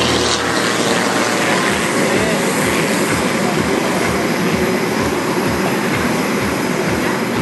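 Single-engine aerobatic propeller plane flying overhead, heard as a steady roar just after its pass, with irregular low thumps underneath.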